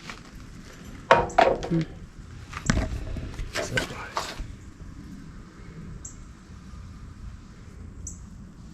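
Several sharp clanks and knocks from metal parts and tools being handled, bunched in the first half, then only a low background.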